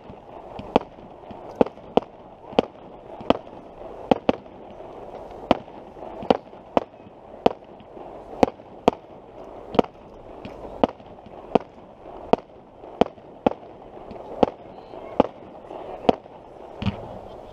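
Aerial firework shells bursting in the sky, a steady series of sharp bangs about two a second over a continuous wash of sound.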